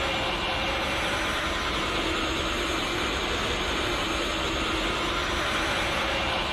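Anime-style power-aura sound effect: a steady, dense rushing noise with a few faint held tones running under it, without any break or change.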